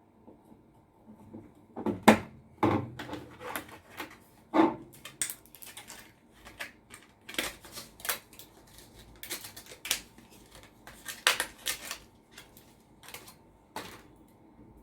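Sharp plastic and metal clicks and knocks as DDR2 RAM sticks are handled and pressed into a motherboard's memory slots, the loudest about two seconds in, then irregular lighter clicks.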